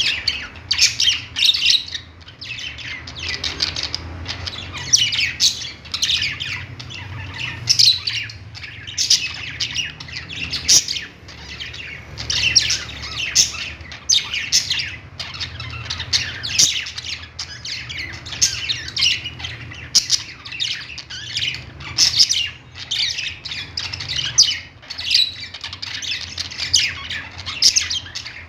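Several budgerigars chirping and squawking without pause, many short calls overlapping, with a faint steady low hum underneath.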